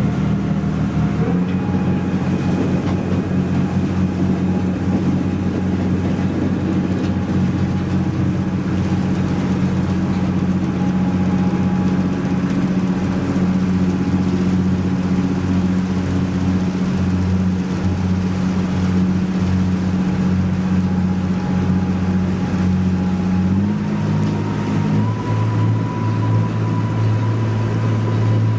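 Boat engine running steadily under way, with a steady low hum. Its note shifts about a second in and again about 24 seconds in, as the engine speed changes.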